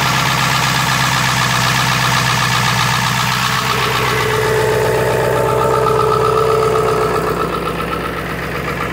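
2002 Ford F-350's 7.3-litre Power Stroke turbo diesel V8 idling evenly with a rapid, regular clatter, the engine still cold just after a hard cold start. It grows a little fainter near the end.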